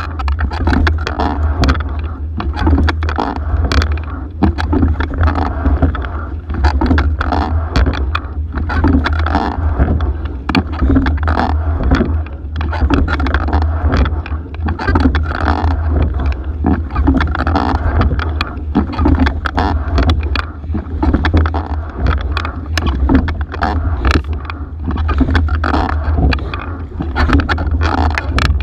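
Single racing scull being rowed hard: water rushing along the hull, with the oars clicking and knocking in their oarlocks, all swelling and easing with each stroke over a steady low rumble.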